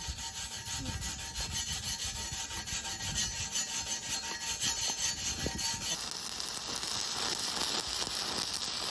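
Hand wire brush scrubbing slag off a 7018 stick-weld bead with quick back-and-forth strokes. About six seconds in, this gives way to the steady crackling hiss of a stick-welding arc burning a 7018 electrode.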